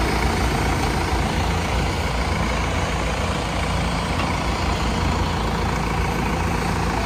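Diesel engines of a Preet and a Farmtrac 6055 tractor running steadily under load as they haul three loaded trolleys through mud, a continuous low hum.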